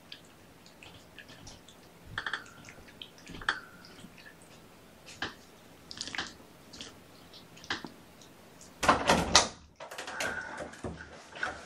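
Kittens playing among toys on a carpeted floor: scattered light taps and clicks, with a louder rustling clatter lasting about half a second around nine seconds in.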